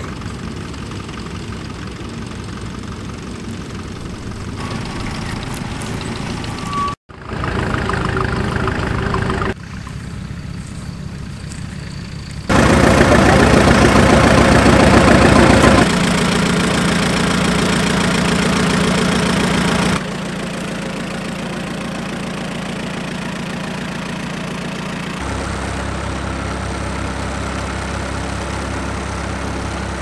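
Vintage tractor engines running and idling, heard in a string of short clips that cut abruptly from one to the next at different loudness; the loudest stretch is near the middle, and the last clip has a steady, evenly pulsing idle.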